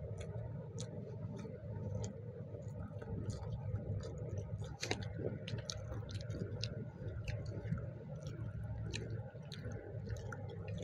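Close-up eating sounds: fingers squishing and mixing rice with dal and mashed potato on plastic plates, with chewing and many small, irregular clicks of fingers and food against the plates.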